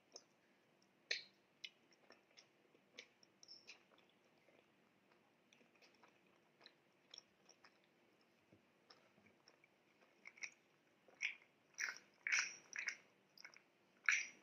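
Close-miked chewing of soft milk bread, with small wet mouth clicks and smacks. They come only now and then at first, then louder and closer together from about ten seconds in.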